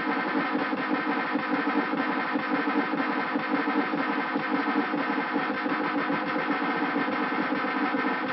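Hand-made Arduino noise/drone synthesizer playing a continuous buzzing drone of many steady tones at once, with a fast, wavering flutter.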